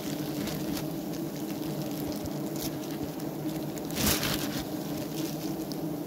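A knife blade cutting and scraping through wax honeycomb, making irregular crunching, squishing strokes, the loudest about four seconds in. Underneath runs the steady hum of the bees covering the comb.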